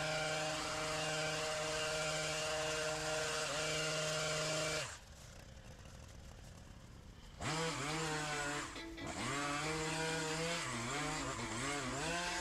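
Stihl petrol brush cutter engine running at a steady high speed. About five seconds in it drops away for a couple of seconds, then comes back revving up and down under load as it cuts.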